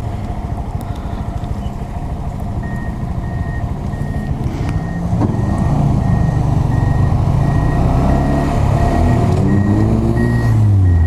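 A vehicle's reversing alarm sounds a steady run of evenly spaced high beeps, starting a few seconds in. Under it a motorcycle engine runs and revs up and down, getting louder in the second half.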